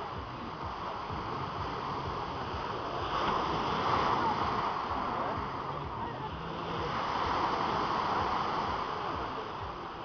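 Small sea waves breaking and washing up a pebble beach, a steady rush that swells twice, about three seconds in and again near the end.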